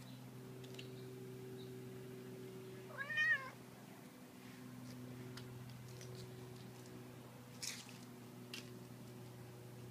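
A domestic cat meows once, a short call that rises and falls in pitch, about three seconds in.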